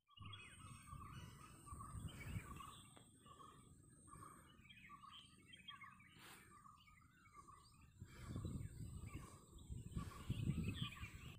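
Birds chirping and calling over and over, with a thin steady high tone behind them. Low rumbling gusts of wind on the microphone swell about two seconds in and again near the end, when they are loudest.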